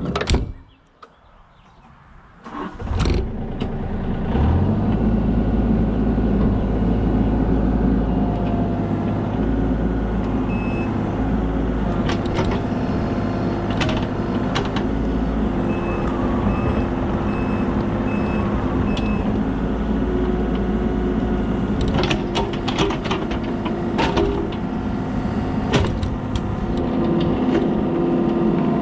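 Kobelco SK35SR mini excavator's diesel engine starting up about three seconds in and then running steadily at working speed, with sharp knocks now and then as the machine works.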